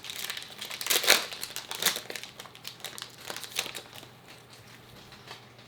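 Trading card pack wrapper and cards crinkling and rustling as they are handled, a string of sharp crackles. The crackles are busiest in the first two seconds and thin out after about four seconds.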